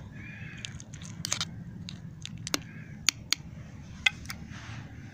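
Wood campfire crackling, with irregular sharp pops over a steady low rumble.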